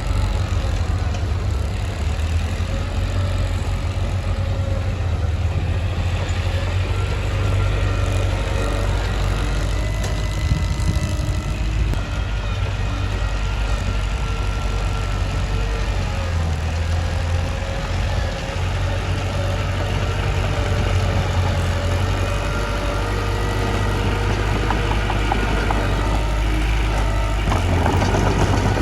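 Mitsubishi bulldozer's diesel engine running steadily, with a continuous deep drone and fainter whining tones above it. It grows louder and rougher near the end.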